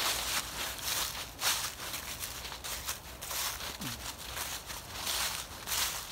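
Footsteps crunching and swishing through a thick layer of dry fallen leaves at a walking pace, a step every half second to a second.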